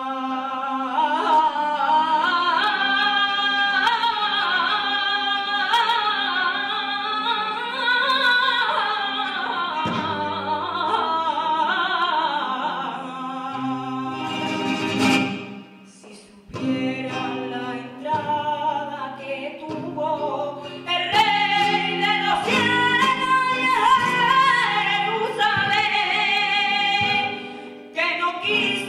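Background music: a voice singing in a flamenco style with ornamented, wavering lines over instrumental accompaniment. The singing breaks off briefly about halfway through, then resumes.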